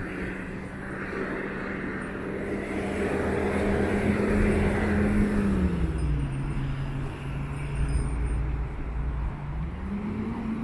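A motor engine's low, steady hum with a deep rumble beneath it; its pitch drops a little about halfway through and rises again near the end.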